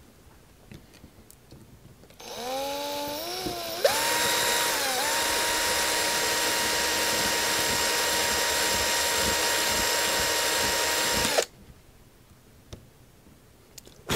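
Cordless drill spinning up about two seconds in with a rising whine, then running at a steady speed with a brief dip near five seconds, before stopping abruptly about seven seconds later. It is elongating a mounting hole.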